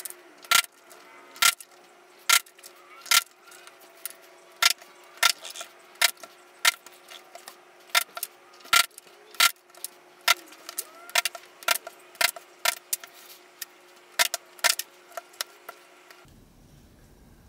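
Sharp, irregular taps from leatherworking tools, about one or two a second, over a faint steady hum that stops near the end.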